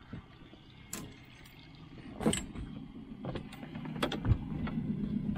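Bimini canopy on an aluminium boat being folded down: scattered knocks and clanks of its metal frame and fittings against the hull. A low motor hum builds up in the second half.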